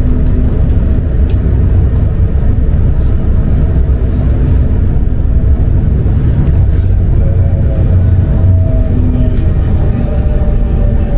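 Tram running along its tracks: a steady, loud low rumble with a faint hum over it.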